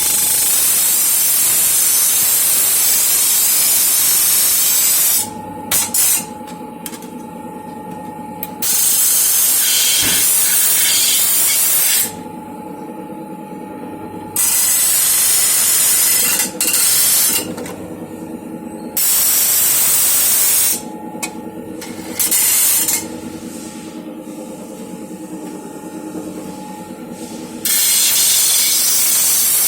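Compressed air hissing loudly in on-off bursts of one to five seconds, several times over, from a pneumatic tool or air line. Between bursts a quieter hum with a steady tone runs on.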